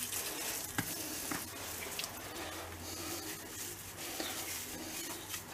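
The soft inside of a bread loaf being crumbled by hand into a plastic bowl of minced beef: quiet rustling with a few small ticks.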